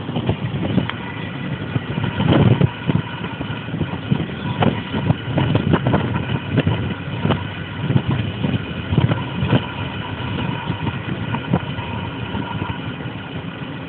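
Car running: continuous engine and road noise with uneven low rumbling swells.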